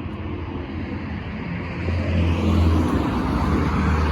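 A car's engine and tyres on the road, a low hum with tyre noise that grows louder about halfway through.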